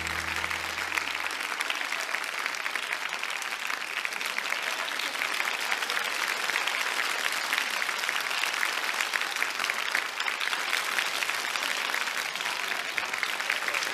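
Large concert audience applauding steadily. The band's last low held note fades out in the first second or two.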